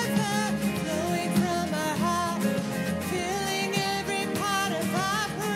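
A woman singing the melody of a contemporary worship song, with wavering held notes, over instrumental band accompaniment.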